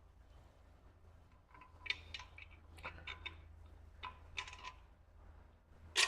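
Light metallic clicks and taps of engine parts being handled as a connecting rod cap is fitted onto its rod bolts, with a sharper click near the end.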